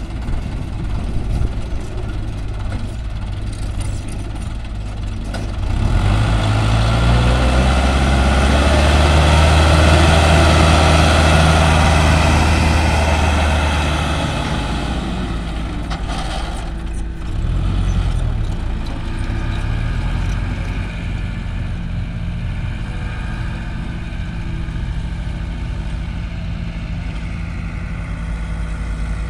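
Diesel farm tractor engine pulling a loaded trolley, running steadily, then working harder and louder from about six seconds in as it passes close under load, and easing back to a steady lower run a little after halfway.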